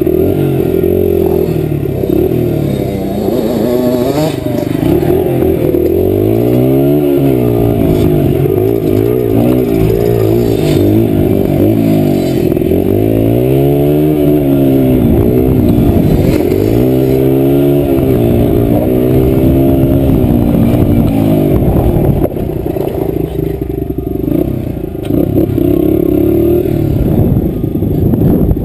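Single-cylinder Honda dirt bike engine being ridden along a trail, its pitch rising and falling again and again as the throttle is opened and closed.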